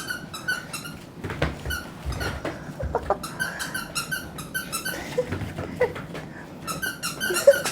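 Squeaky dog toys squeaking over and over in quick runs as mame-shiba dogs bite and tug them, with a few soft knocks.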